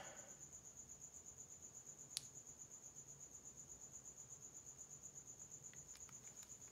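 Faint, high-pitched cricket chirping in a steady trill of about eight pulses a second, with a single light click about two seconds in.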